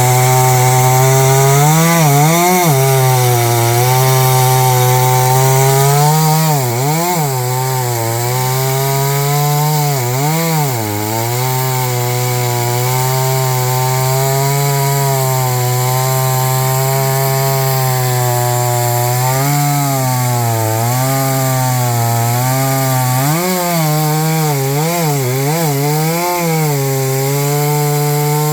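Noker 381 chainsaw, a 72cc two-stroke, running at full throttle while cutting wood. Its engine pitch holds steady, then sags and recovers several times as the chain bites into the cut, most often near the end.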